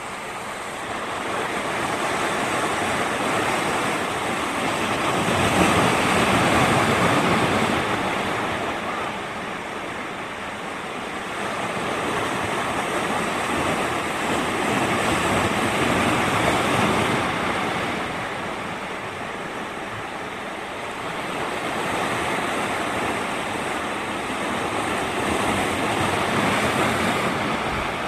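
Ocean surf: a rushing wash of waves that swells and fades about every ten seconds.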